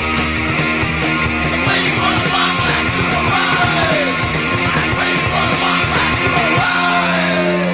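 Punk rock song played loud from a 1981 record: a full band in a dense, continuous wall of sound.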